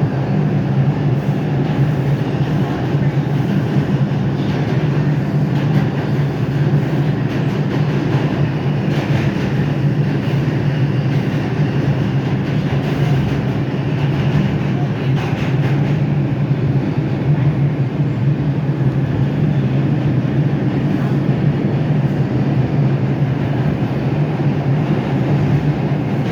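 R142 subway train running at speed, heard from inside the car: a steady, loud rumble of wheels on rail with an even low hum.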